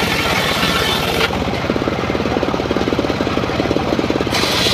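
Homemade engine-driven circular saw bench ripping a wooden plank. The cut ends about a second in and the blade spins free, leaving the engine's fast, even beat, until a new cut starts near the end.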